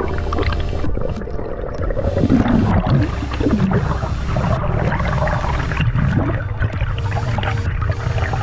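Water gurgling and rushing over an underwater camera as a diver swims up toward the surface, with bubbling and an irregular, churning low rumble.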